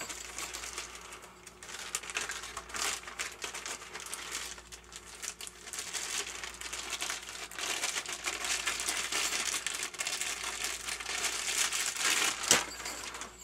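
Packing material crinkling and rustling continuously as a package is unwrapped by hand, with one sharper crackle near the end.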